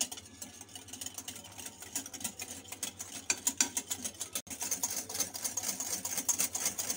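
Metal wire whisk beating egg yolks and cocoa powder in a glass bowl, its wires clicking rapidly against the glass. The whisking gets faster and louder a little past halfway.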